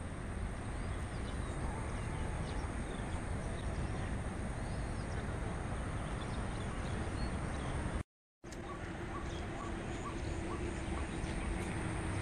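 Steady outdoor background noise with faint bird chirps scattered through it. The sound drops out for a moment about eight seconds in, and after that a faint quick ticking and a low steady hum come in.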